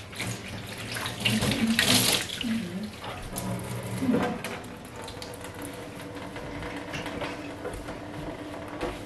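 Kitchen tap running into a stainless steel sink, with splashing as hands and a cloth are rinsed under the stream. The splashing is louder in the first few seconds, then settles to a steadier run.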